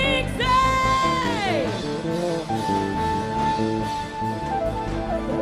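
Live band music with drums. A high held note slides down about a second and a half in, and a long steady note follows through the middle.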